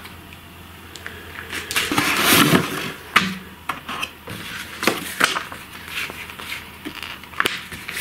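Packaging being handled: a plastic bag of spare wheels rustling and cardboard box parts being moved and set down, with a noisy rustle about two seconds in and scattered light knocks and scrapes after it.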